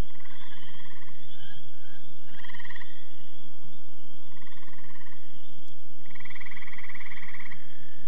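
Frogs trilling at night: four pulsed trills, each half a second to a second and a half long, the last the longest, over a steady high-pitched chorus.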